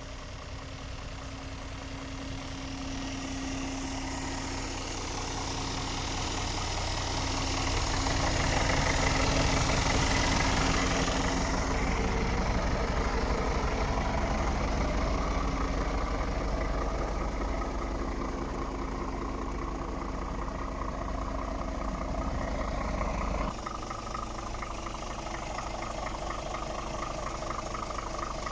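Scania R500 truck's 13-litre straight-six diesel engine idling steadily. It grows louder towards the middle, with a hiss over it for several seconds, and the sound changes abruptly near the end.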